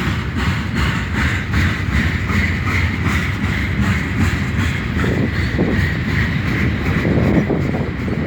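Freight train cars rolling past: a steady low rumble, with wheels clicking over the rail joints at about three to four clicks a second during the first few seconds.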